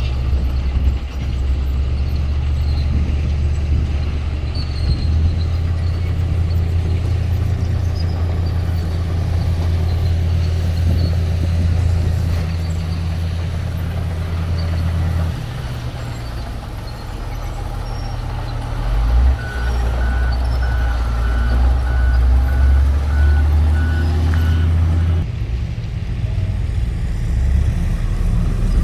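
Motor grader's diesel engine running with a deep, steady drone whose pitch shifts a few times as the machine works. About two-thirds of the way through, a reversing alarm beeps repeatedly for about five seconds.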